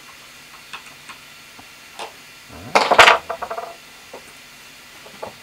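Hand tools and small parts being handled and set down on a workbench: faint clicks at first, then a loud clatter about three seconds in that breaks into a short rattle.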